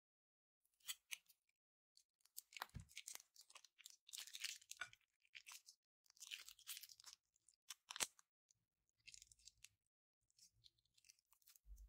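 Slime being worked from small plastic piping bags, giving a run of short crackling, sticky bursts with pauses between them; the sharpest crackle comes about eight seconds in.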